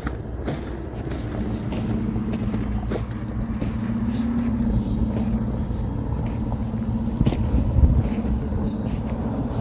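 Gasoline snowblower engine running steadily, its pitch bending up briefly about four seconds in, with a few short knocks.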